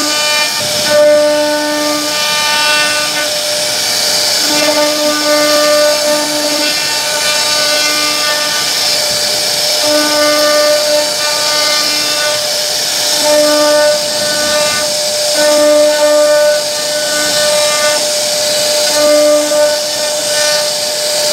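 CNC wood router spindle whining steadily as its bit carves a relief pattern into a wooden board, over a hiss of cutting. A lower hum cuts in and out every second or two as the machine moves.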